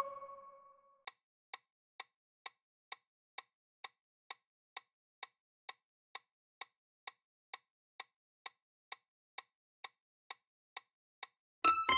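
Quiz countdown timer sound effect ticking evenly about twice a second. A short chime rings at the start, and a louder chime of several bright tones comes near the end as the time runs out.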